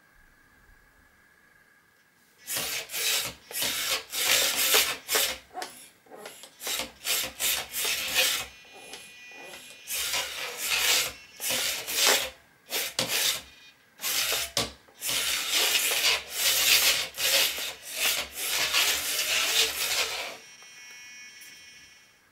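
Tiny gear motors of a 75 g two-wheel-drive fleaweight robot driving in short stop-start bursts across a wooden tabletop, the wheels and chassis scrubbing on the wood. A thinner, higher whine comes in briefly about nine seconds in and again near the end.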